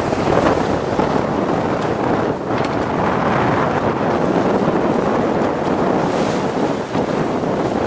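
Wind buffeting the microphone over the steady rush of waves, on a small sailboat under way in rough seas.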